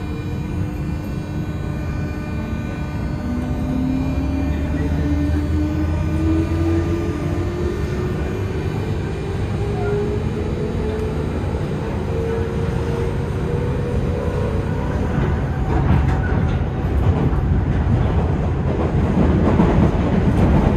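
Inside a JR 201 series chopper-controlled motor car accelerating from a station: the armature chopper's steady high tones over a motor whine that rises in pitch as speed builds, with a heavy low rumble. Wheel-on-rail noise grows louder over the last few seconds.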